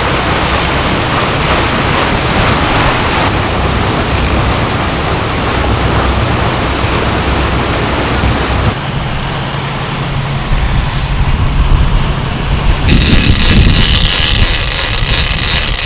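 Fishing boat underway: its engine drones under wind and the rush of wake water. Partway through a steady low engine hum comes to the front, and near the end a bright hissing noise joins.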